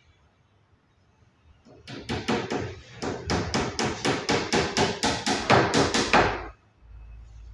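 A hammer drives nails into a thin plywood back panel of a wardrobe. It lands a fast run of strikes, about four or five a second, starting about two seconds in and stopping abruptly near the end.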